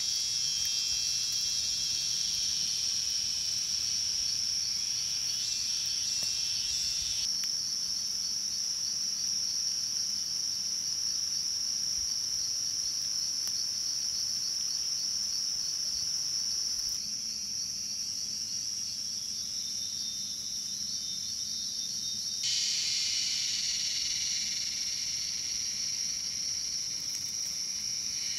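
Steady, shrill chorus of insects trilling without a break, with a few abrupt jumps in level where the background changes suddenly.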